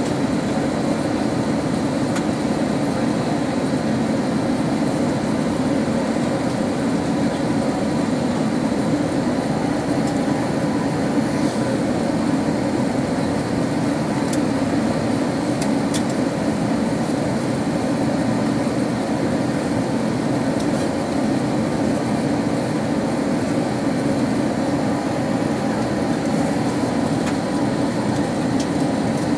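Steady cabin noise inside an Airbus A380-861 in flight: a constant rush of airflow with the hum of its Engine Alliance GP7200 engines, heaviest in a low, even drone.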